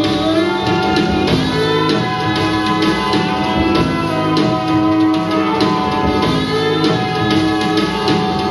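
Music with instruments and drums, loud and steady throughout.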